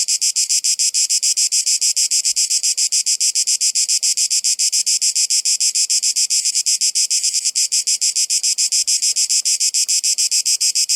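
Cicadas calling: a loud, high-pitched buzz that pulses evenly, about seven or eight pulses a second.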